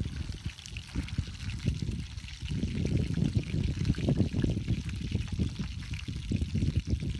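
Two whole fish sizzling in hot oil in a frying pan, a steady crackling hiss, over a low, uneven rumble.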